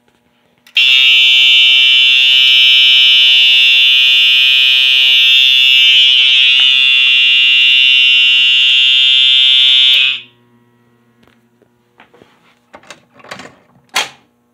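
Fire alarm system set off, its signal sounding one loud, steady, high-pitched tone for about nine seconds before it cuts off suddenly. A few clicks and knocks follow near the end.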